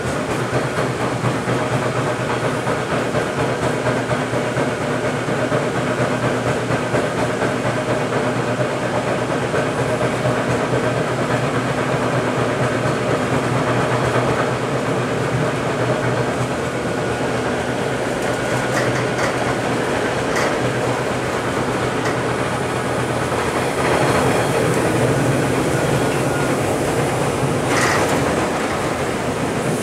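TTC T-1 subway train running between stations, heard from inside the car: a steady noise of motors and wheels on the rails. It gets a little louder about two-thirds of the way through, with a few short sharp clicks near the end.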